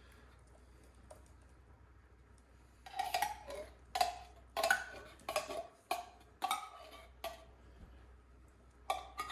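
A metal spoon knocking and scraping condensed cheddar cheese soup out of a can into the pot. It is a series of short ringing metallic knocks, about two a second, starting about three seconds in.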